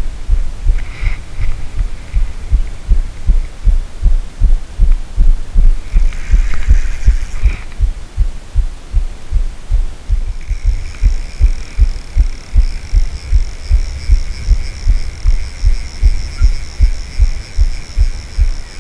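Muffled, rhythmic low thumping, about three to four thumps a second, from the rod and spinning reel being handled against the camera while a hooked carp is played. A steady high-pitched whine joins about ten seconds in.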